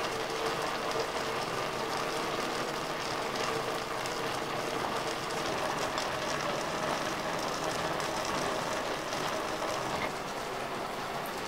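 Steady bubbling hiss of a steel pot of green vegetables boiling on a charcoal fire.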